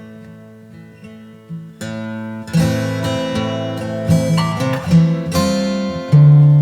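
Background music on acoustic guitar: soft plucked notes at first, growing louder and fuller with strummed chords from about two seconds in.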